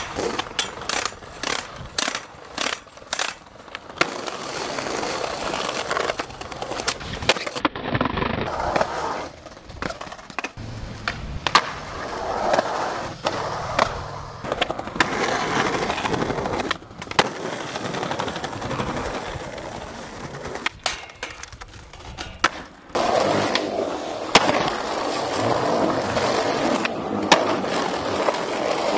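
Skateboards rolling on concrete and paving, with sharp cracks of tail pops and board landings. A quick run of clicks fills the first few seconds, and the rolling sound cuts in and out abruptly.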